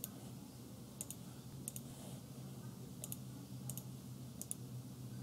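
Computer mouse clicks: about half a dozen short clicks spaced irregularly, each a quick press-and-release pair, over a faint steady low hum.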